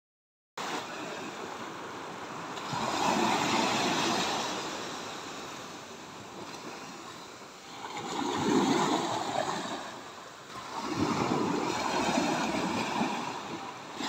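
Small waves washing up onto a sandy beach and drawing back, the surf swelling three times: about three seconds in, around eight seconds in, and again near eleven seconds.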